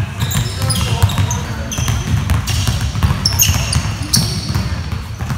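Many basketballs being dribbled on a hardwood gym floor: a dense, irregular patter of bounces, with sneakers squeaking on the floor now and then.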